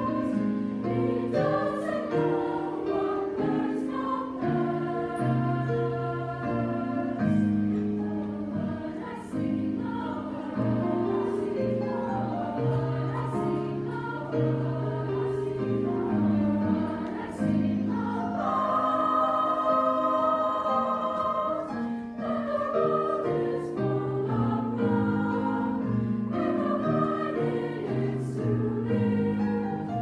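Treble choir of upper voices singing in harmony, in several parts, with a high chord held for a few seconds partway through.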